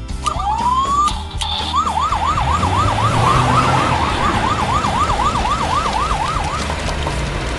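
An emergency-vehicle siren: one quick rising wail, then a fast yelp warbling up and down about three times a second for some five seconds before it stops.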